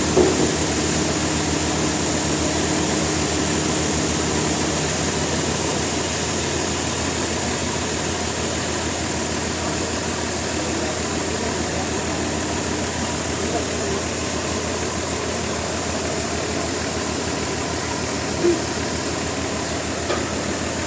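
Steady drone of an engine or machinery running at a constant speed, with a low, even hum. Brief short sounds rise above it just after the start and again near the end.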